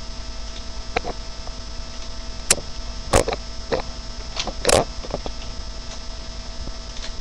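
Steady electrical hum with several knocks and clicks over it, the loudest a little after three seconds in and just before five seconds in.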